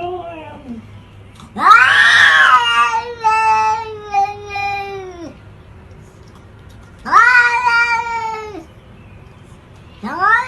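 A cat meowing in long drawn-out calls with pauses between them. The loudest call comes about two seconds in and runs for several seconds, another follows around seven seconds, and a new one starts near the end.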